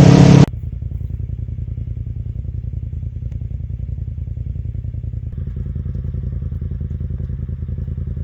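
Polaris side-by-side engine running at low speed: a steady, low, pulsing rumble. A much louder sound cuts off abruptly about half a second in, and the engine note fills out slightly about five seconds in.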